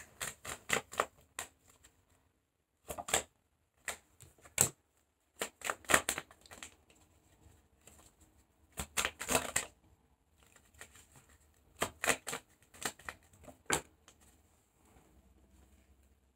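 Tarot cards being shuffled and handled: several short bursts of clicking and riffling with pauses between.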